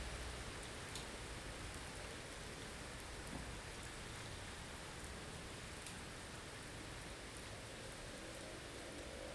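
Blizzard ambience: a steady hiss of wind-driven snow, with occasional faint ticks as it strikes a surface. A faint wind whistle comes in near the end.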